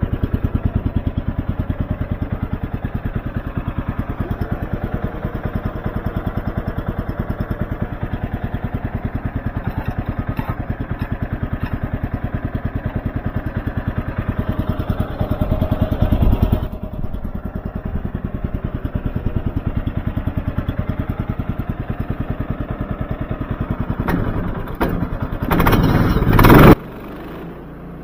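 Woodland Mills HM130MAX band sawmill running, its single-cylinder gas engine chugging steadily under load as the band blade makes a cut through a log. A loud rushing noise near the end, then the sound drops off abruptly.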